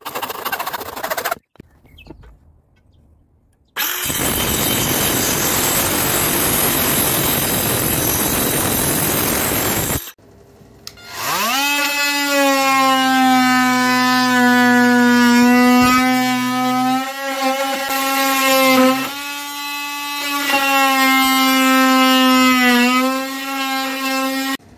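Makita oscillating multi-tool starting up about halfway through, its pitch rising quickly, then plunge-cutting into a timber stud with a steady high buzz that dips slightly as the blade bites. Before it comes a loud, even hiss lasting about six seconds.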